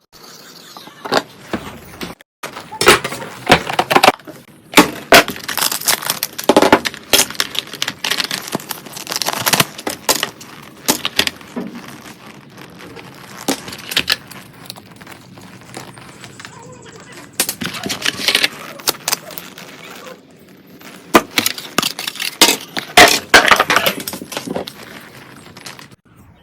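A smartphone box and its contents being handled during unboxing: an irregular run of sharp clicks, taps and rustles of card and plastic, with brief lulls.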